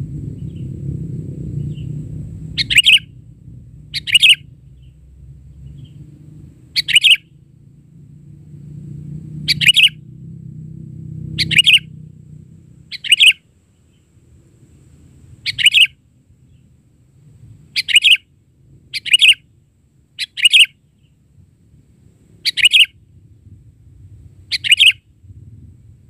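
Sooty-headed bulbul calling: about a dozen short, loud chirping calls, one every one to three seconds. A low rumble underneath dies away about halfway through.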